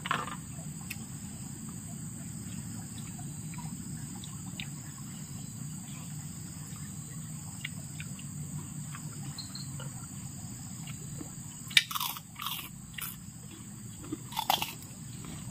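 Eating sounds: quiet chewing, then a few short sharp sucks and clicks near the end, as cooked freshwater snails (langkitang) are sucked out of their shells. A steady high insect drone runs underneath.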